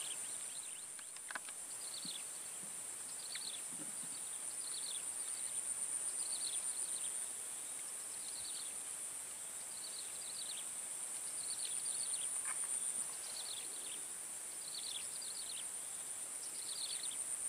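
Insects droning steadily at a high pitch, with a short falling chirp repeated about once a second over it.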